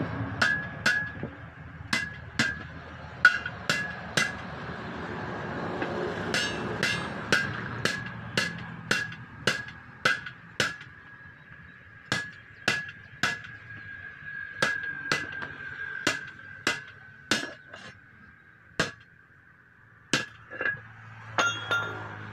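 Hand hammer striking the steel rim of a truck wheel while a tyre is being fitted onto it: a long run of sharp metallic clanks, about one to two a second, thinning out near the end.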